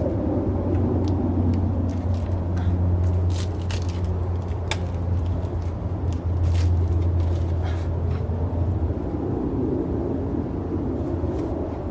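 A steady low engine-like drone, as of a vehicle running, fading out about nine seconds in, with scattered small clicks and rustles over it.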